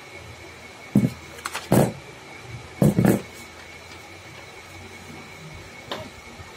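Handling noise as a paper template is pressed, folded and shifted against a rough-carved wooden elephant block: a cluster of sharp thumps and rustles from about one to three seconds in, then a single small click near the end, over a steady faint high whine.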